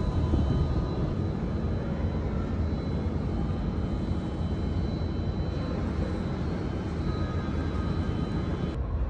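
Wind blowing across the phone's microphone on an open-air observation deck: a steady low rumbling noise with a few faint steady tones above it, changing abruptly near the end.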